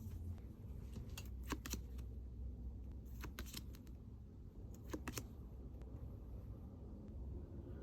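Album packaging and cards being handled during an unboxing: a few short crinkles, clicks and taps of paper and plastic, scattered through, over a faint low hum.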